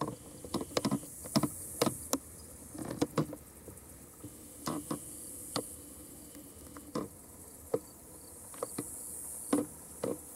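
Insects buzzing in a high, steady hiss that swells and fades, with many scattered sharp clicks and rustles close to the microphone. The approaching train is not yet heard.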